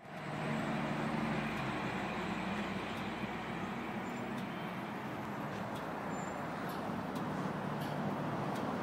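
Steady vehicle and road-traffic noise, with a low engine hum that is strongest in the first couple of seconds and a few faint ticks.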